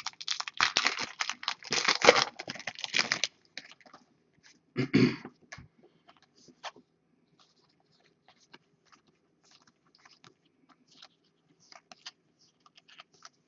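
Trading-card pack wrapper crinkling and tearing for about three seconds, then faint scattered clicks and slides of cards being handled, with a short thump about five seconds in.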